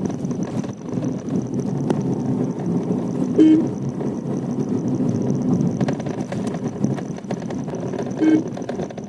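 Steady road and engine rumble heard from inside a Tata Tiago's cabin while driving with the windows up, with scattered light clicks from a charger rattling on the dashboard. Two short beeps stand out as the loudest sounds, one about three and a half seconds in and another near the end.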